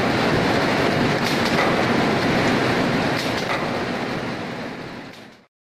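Spindle rotary veneer peeling lathe running: a loud, dense, steady machine noise with a few faint knocks. It fades away and cuts off near the end.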